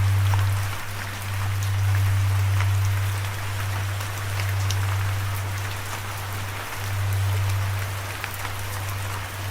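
Steady rain falling, with scattered individual drop ticks, over a low sustained hum that swells and dips every two to three seconds.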